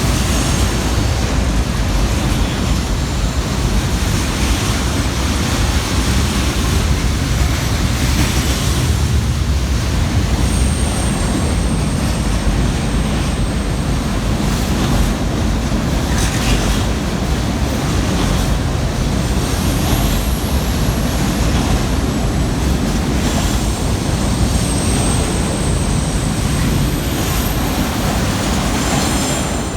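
Long freight train rolling past slowly, a steady loud rumble of wagons on the rails, with faint high-pitched squealing tones now and then from about ten seconds in.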